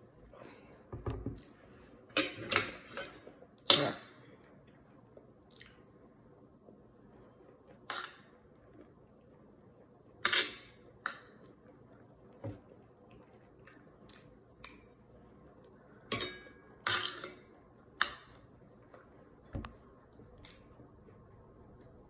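Metal spoon and fork clinking and scraping against a ceramic plate while scooping fried rice, in a dozen or so sharp, irregular clinks that are loudest about two to four seconds in. A dull thump comes about a second in.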